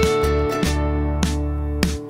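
Instrumental background music with sustained melody notes and a steady beat.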